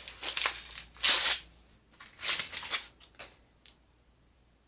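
Plastic toy packaging crinkling and crumpling in a few bursts as it is handled open, dying away about three and a half seconds in.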